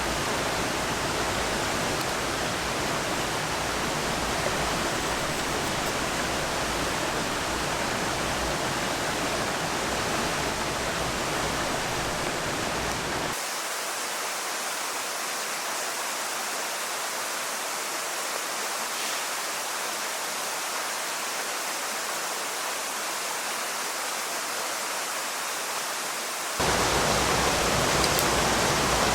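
Steady rush of flowing water, a waterfall or mountain stream, with no other sound on top. The sound changes abruptly twice: about 13 seconds in the deep part drops away and it gets a little quieter, and near the end it comes back fuller and louder.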